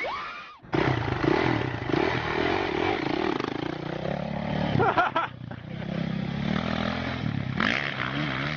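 Motorcycle engine running and being revved, its pitch rising and falling, after a brief gap just under a second in.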